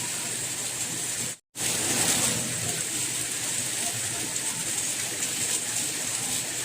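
Steady rain falling, an even hiss of many drops. It cuts out completely for a split second about a second and a half in, then resumes.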